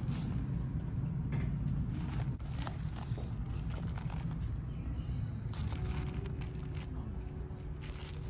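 Rustling and clicking of merchandise and packaging being handled close to the microphone, over a steady low rumble of store background noise.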